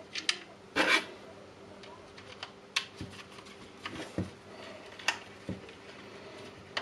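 Irregular clicks and taps of hard plastic as a small screwdriver works screws into a Milwaukee M18 battery's plastic housing and the pack is handled, the loudest knock about a second in.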